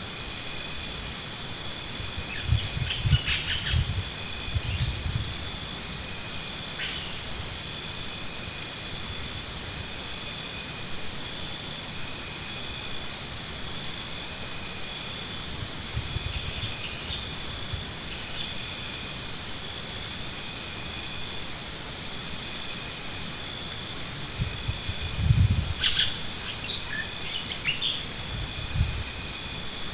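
High-pitched, insect-like trilling in bouts of about three seconds, coming back roughly every seven seconds over a steady high hum, with a few dull low thumps in between.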